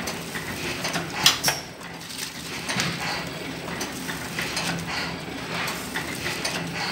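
Sharp metallic clinks and clatter over a steady low hum, with the loudest clinks about a second in.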